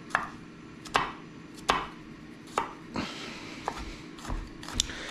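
Chef's knife chopping white onion on a wooden cutting board: about eight separate knife strikes, unevenly spaced, roughly one or two a second.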